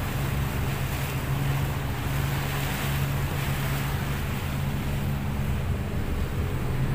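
Boat engine running steadily under way, a constant low drone, with water rushing past the hull and wind buffeting the microphone.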